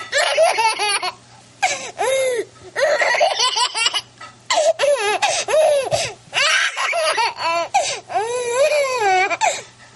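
A baby laughing heartily in a string of bouts, each about a second long with short pauses for breath between, stopping just before the end.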